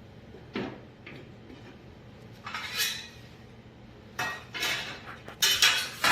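Hard parts clattering and knocking as they are handled, in several separate bursts of bangs and short scrapes that come closest together near the end.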